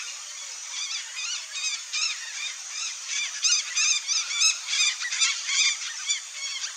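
Red-bellied macaw calling: a quick run of short, high-pitched calls, several a second, starting about a second in, loudest in the middle and thinning out near the end.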